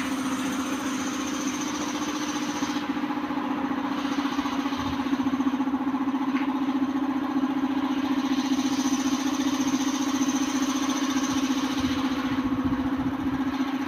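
An engine idling with a steady drone.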